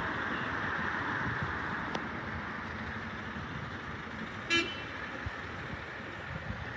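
A single short horn toot about four and a half seconds in, over a steady background rush.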